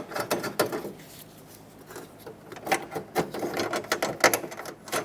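Ratchet wrench clicking in quick runs as it spins nuts down onto a bracket's mounting studs, with pauses between the runs.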